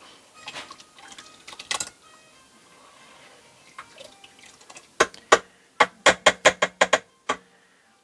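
Metal utensil tapped against the rim of a soup pot: a few light clinks early, then a quick run of about nine sharp knocks, roughly four a second, with the pot ringing faintly under them.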